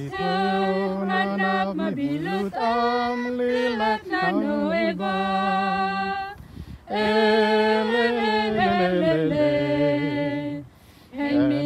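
A small group of voices singing a hymn a cappella in long, slow, held notes, pausing briefly for breath twice, about six and eleven seconds in.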